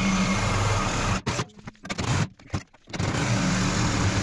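Cordless reciprocating saw cutting through old iron heating pipe, running in spurts: it stops briefly about a second in, cuts in short bursts, pauses again about halfway through, then runs steadily once more.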